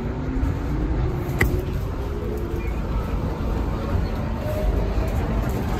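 R62A subway car running, heard from inside the car: a steady low rumble with a faint whine that rises slowly in pitch, and one sharp click about a second and a half in.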